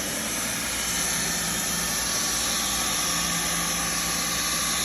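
Hot-air vinyl welding gun's blower running with a steady hiss and hum while it warms up to welding heat.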